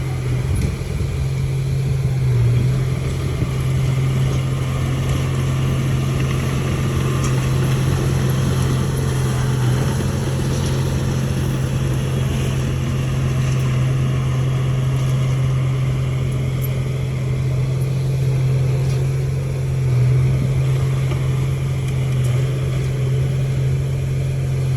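Heavy diesel engine of earthmoving machinery running at a steady speed: a constant low drone that swells slightly a couple of times.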